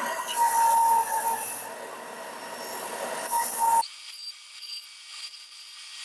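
Benchtop belt sander running with a wooden block pressed to its belt, a steady sanding rasp with a thin whine; the sanding belt is worn and cutting slowly. The loud sound cuts off abruptly about four seconds in, leaving faint scraping.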